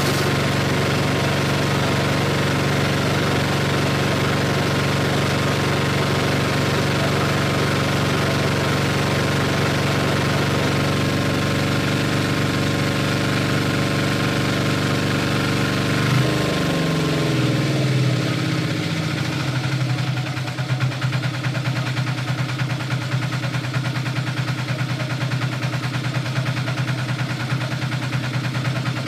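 A small stationary engine drives a meatball-dough mixer, running steadily at speed. About sixteen seconds in, its pitch falls over a few seconds and it settles into a slower, lumpier idle.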